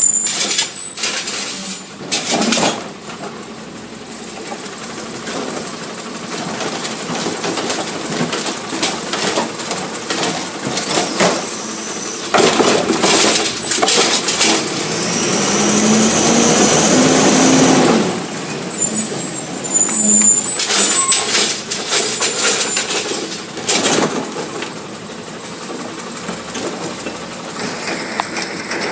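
Recycling garbage truck working its route: engine running and revving, brakes squealing and hissing, with clanks and knocks from the collection work. A long loud rushing, clattering stretch about halfway through.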